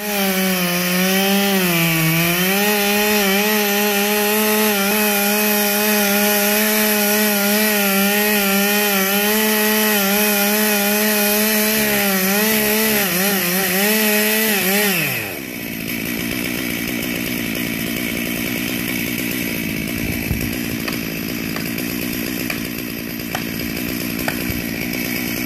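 Two-stroke gas chainsaw cutting into the base of a tree trunk at full throttle, its pitch wavering and dipping as the chain bites the wood. About fifteen seconds in the throttle is let off and the engine drops to a lower, fast-chattering idle, with a few light knocks near the end.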